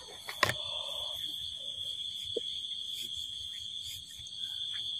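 A steady high-pitched drone holds one pitch throughout, with one sharp click about half a second in.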